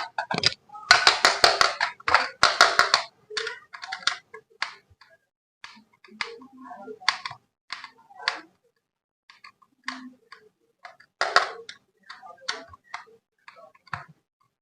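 Hands handling a plastic toy and its packaging: irregular clicks and rattles, dense and continuous for the first three seconds, then sparser taps and clicks.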